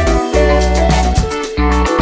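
Background music: an upbeat track with plucked guitar, steady bass notes and a regular beat.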